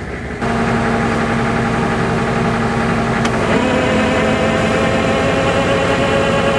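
Tow truck engine switched up to high idle: it jumps to a faster, louder run about half a second in, then steps up slightly in pitch again around three and a half seconds, with one brief click in between.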